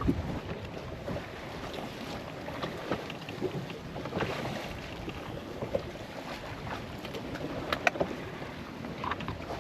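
Wind noise on the microphone over a steady outdoor hiss, with scattered light clicks and a couple of sharper ticks about eight seconds in.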